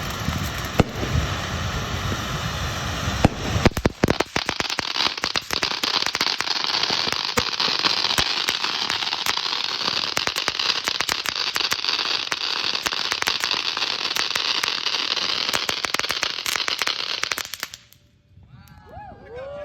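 Atomic Salsa firework fountain spraying with a steady hiss that breaks into dense crackling about four seconds in. It cuts off suddenly near the end as the fountain burns out.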